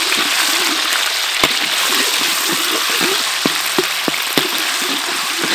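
Red curry paste and whole shallots sizzling in hot oil in a steel wok, with small pops and a few sharp clicks of a metal ladle stirring against the pan.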